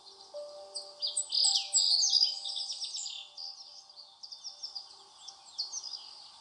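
Many small birds chirping and singing in quick, dense twitters, busiest about one to three seconds in, over soft background music of slow held notes.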